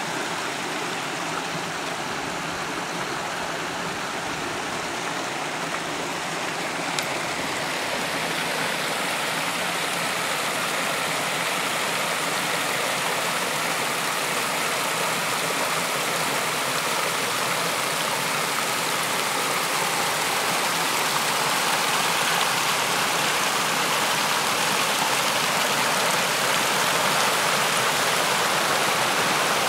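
Steady rush of stream water spilling over rock ledges into a river pool, growing a little louder toward the end.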